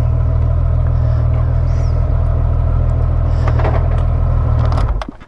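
Motorcycle engine idling steadily after the bike has been parked, then switched off about five seconds in, with the sound cutting off suddenly.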